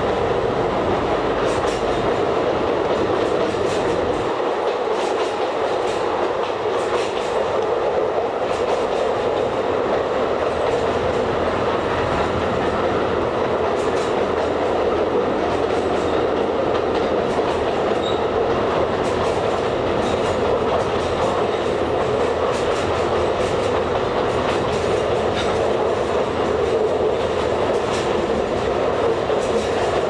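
Alishan Forest Railway narrow-gauge train running steadily, likely through a tunnel: a constant rolling rumble with light, irregular clicks of the wheels over the rail joints.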